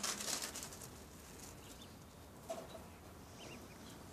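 Ducklings peeping softly a few times, with a brief rustling scratch near the start.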